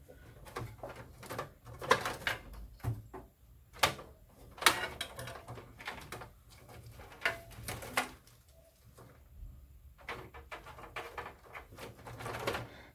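Hands handling cables and parts inside a desktop PC case: irregular clicks, knocks and rustling, with a few sharper knocks between about two and five seconds in.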